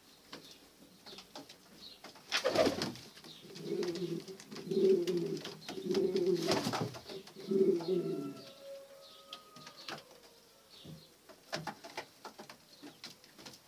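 Domestic pigeons cooing: a run of low, throaty, repeated coos from about three and a half seconds in until about eight seconds. A few sharp clicks are heard around it.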